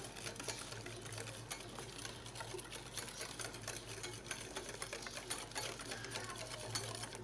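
Hand wire whisk beating a thick egg-yolk, sugar and cornstarch mixture in a bowl: fast, even clicking and scraping of the tines against the bowl.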